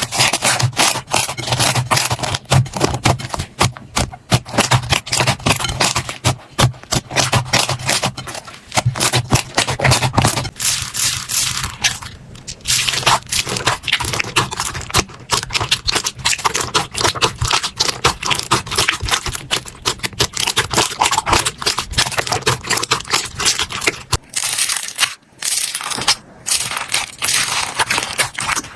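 Slime being squeezed, pressed and stretched by hand, giving a dense, continuous run of small crackling and popping clicks, with brief pauses now and then.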